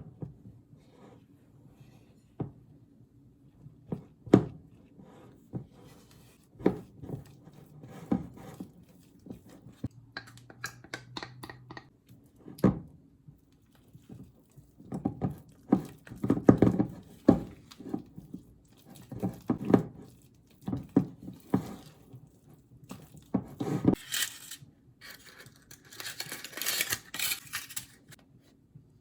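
Hands handling objects at close range: scattered knocks and taps, then a few seconds of rustling and tearing near the end.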